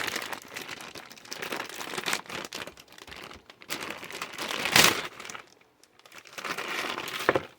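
Plastic packaging crinkling and rustling as kit accessories are handled and unwrapped, with a louder crinkle about five seconds in.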